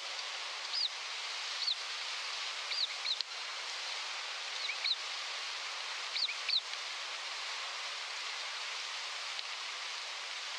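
Owl nestlings in the nest cavity giving short, high squeaky begging calls, often in quick pairs, about a dozen in the first seven seconds, over a steady hiss; after that only the hiss remains.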